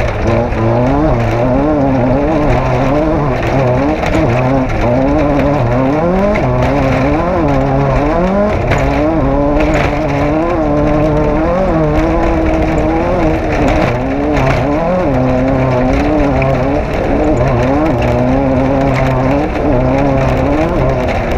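Off-road race vehicle's engine running hard, its pitch rising and falling about every second as the throttle is worked, over a steady rumble.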